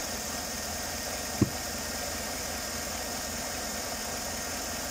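Chevrolet Tahoe V8 idling steadily while warming up, its coolant at about 80 °C with the thermostat just opening and the electric cooling fans still off. A single short click about a second and a half in.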